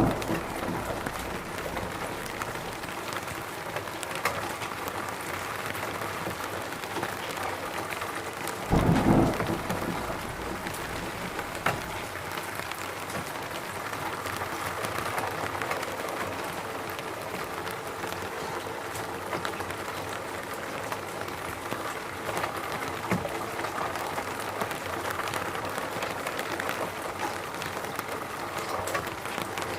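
Steady rain falling in a forest, an even hiss of drops, with one brief low rumble about nine seconds in.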